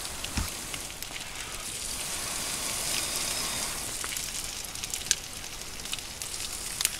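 Small wood campfire burning with a steady hiss and occasional sharp crackles, swelling a little in the middle.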